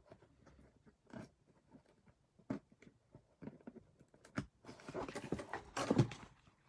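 Cardboard toy packaging and its plastic parts being handled: scattered small clicks and taps, then a denser rustling about five seconds in, with a knock near the end.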